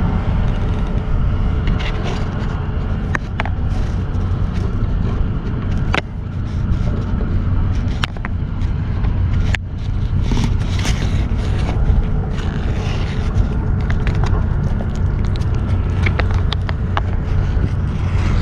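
Steady low rumble throughout, with scattered sharp clicks and scrapes as small dry cat treats are dropped onto a paper plate.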